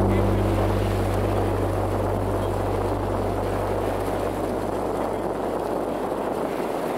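Steady rush and rumble of a tour boat under way: engine noise mixed with water and wind. A low hum fades out over the first few seconds.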